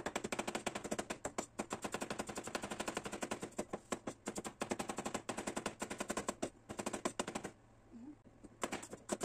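Cleaver rapidly chopping shallots and garlic on a cutting board: fast, even knocks several times a second, stopping about seven and a half seconds in, followed by a few scattered knocks near the end.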